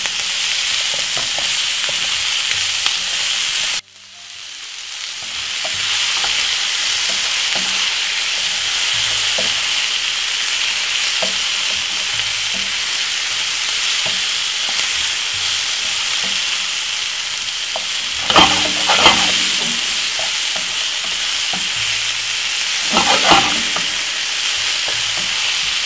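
Sliced mixed vegetables sautéing in hot olive oil in a frying pan, a steady loud sizzle, while a wooden spoon stirs them, with clusters of scraping knocks against the pan about 18 and 23 seconds in. The sizzle cuts out abruptly about four seconds in and builds back up over the next two seconds.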